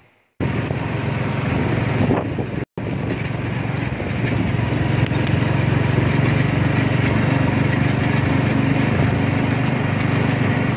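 A small vehicle engine running steadily while riding along a road, with road noise, cutting out twice briefly in the first three seconds.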